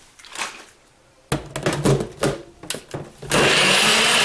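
Clattering plastic knocks as the Nutribullet cup is fitted onto the base, then, about three seconds in, the Nutribullet Pro 900 blender's 900-watt motor starts and runs at full speed, loud and steady, blending a smoothie with a whole unpeeled banana.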